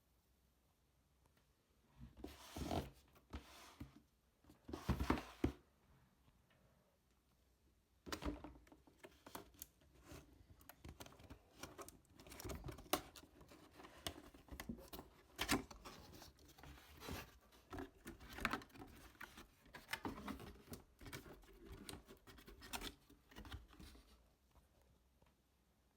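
A box and its packaging being opened and handled by hand: rustling, scraping and crinkling in short, irregular bursts.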